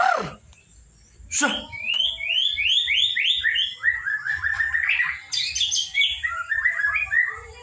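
Young white-rumped shama (murai batu) at the trotol stage singing a quick run of short, repeated chirping notes that step down in pitch. Two sharp falling sounds come near the start and about a second and a half in.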